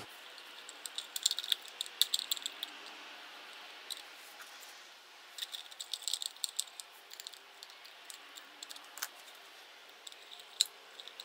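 Hands fitting a small circuit board and its wires back into a plastic junction box: light clicks and rattles, bunched about a second in and again around the middle, with a few single clicks later.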